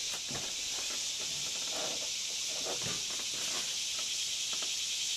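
A steady, high-pitched insect chorus, with a few faint splashes and knocks as a bass is lowered into the water by hand and released.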